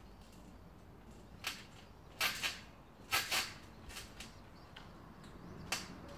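Backyard trampoline under a child's bouncing: a series of brief sharp slaps and creaks from the mat and springs, some coming in quick pairs.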